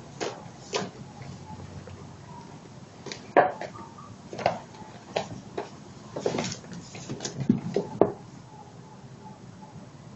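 Irregular knocks, thumps and scuffling of two Mekong bobtail kittens wrestling against a yarn-covered cube cat house and a tiled floor, with a quick run of knocks in the second half.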